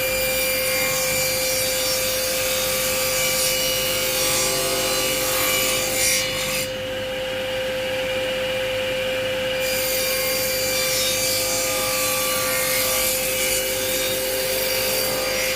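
Table saw running with a steady whine while it cuts grooves in small wooden pieces. The high cutting hiss drops away for about three seconds midway, then returns.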